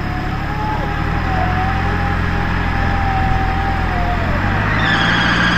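Off-road 4x4's engine running steadily, with a wavering high whine over it. A louder, higher whine starts about five seconds in.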